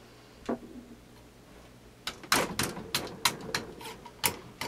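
A single click, then from about two seconds in a quick run of sharp clicks and knocks, roughly three a second, from handling a rifle and its cleaning gear while cleaning the bore.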